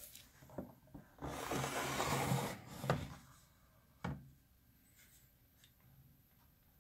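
Handling noises: a rubbing, sliding sound lasting about a second and a half, then a sharp knock about three seconds in and another about a second later, with a few small clicks before them.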